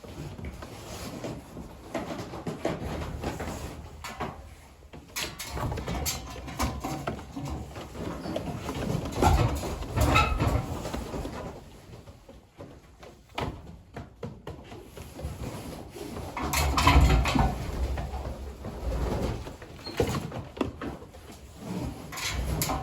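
Young racing pigeons in a loft, cooing and moving about, with irregular knocks and rustling, louder bumps twice.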